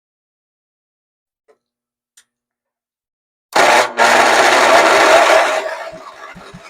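A 2006 Cub Cadet 364 zero-turn mower's engine is cranked by its electric starter, a loud mechanical whirring that starts about three and a half seconds in, runs for about two seconds and then dies away. This is a start attempt on an engine that has sat for 13 years.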